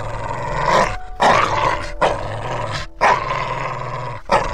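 A dog vocalizing in a string of loud calls, about one a second, each lasting close to a second.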